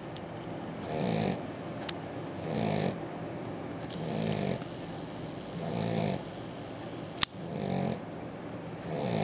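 Australian shepherd puppy snoring in a steady rhythm, about one snore every second and a half. There is a single sharp click about seven seconds in.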